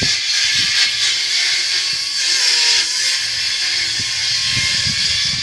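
Loud, steady electrical hissing noise from the ground-transmission experiment's signal, with a few faint thin tones wavering underneath.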